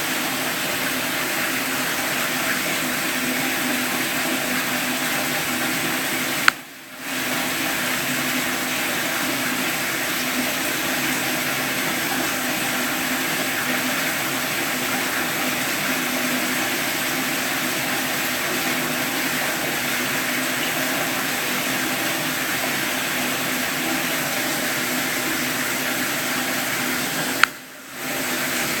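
Steady rush of running water. A sharp click comes about six and a half seconds in and again near the end, and the water sound briefly drops away after each.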